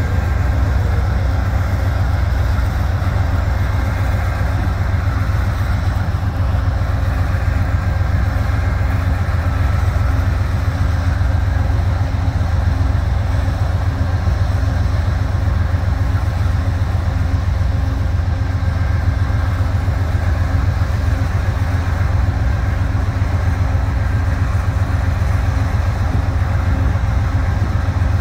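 Amtrak GE P42DC diesel locomotive running steadily while the train stands still, a low, even engine sound with no change in speed.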